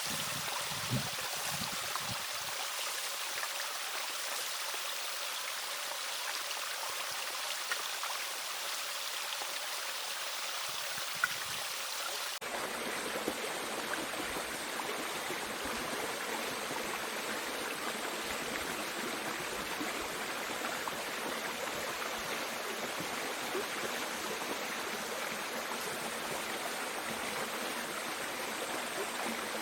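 Mountain stream water rushing steadily over rocks. About twelve seconds in, the sound changes abruptly to a fuller, deeper rush, as from a different spot along the stream.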